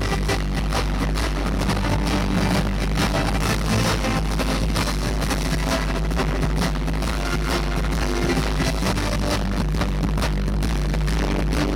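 Loud live amplified band music: a steady deep bass under dense, driving drum hits.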